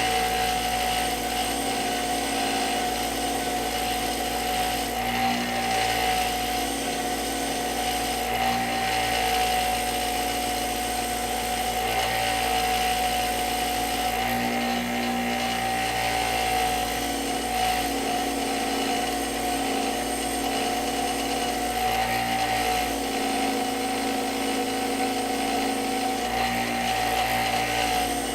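Electric power tool running steadily with a slightly wavering whine, cleaning rust off brake caliper bolts.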